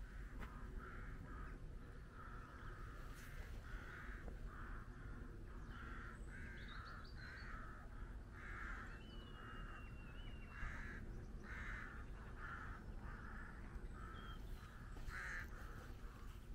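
Crows cawing over and over in a long run of short calls, about two a second. Midway through, a small bird gives a brief thin whistle against a low steady outdoor background.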